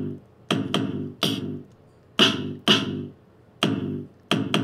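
Artiphon Orba 2 in drum mode, its pads tapped by finger: about nine electronic drum hits, a low thump with a hissy snare-like top, in an uneven rhythm through the unit's small built-in speaker.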